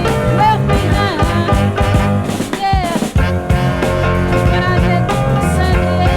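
Funky soul record from 1972 playing: a steady drum and bass groove, with sliding, bending high notes over it in the first three seconds.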